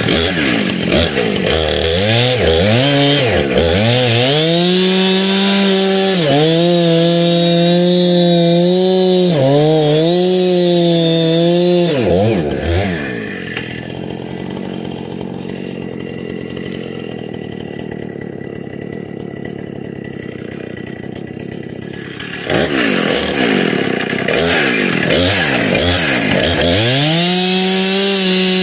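Gas chainsaw cutting through a large hardwood log, its engine note rising and sagging as it revs and bogs under load in the cut. About thirteen seconds in it drops to a much quieter steady idle for roughly nine seconds, then revs back up and cuts again.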